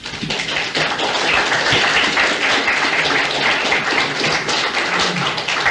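Audience applauding: many hands clapping at once in a dense, continuous clatter.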